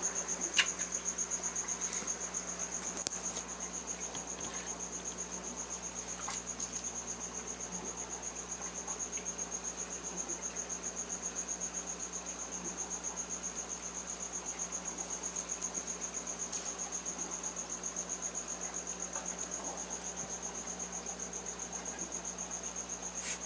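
Live feeder crickets chirping: a steady, high-pitched, pulsing chirp, with a few faint clicks in the first few seconds.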